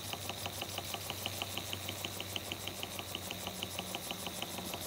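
1921 Empire B-30 toy steam engine running under steam: its single-acting cylinder chuffs in a fast, even rhythm of about six beats a second over a steady hiss.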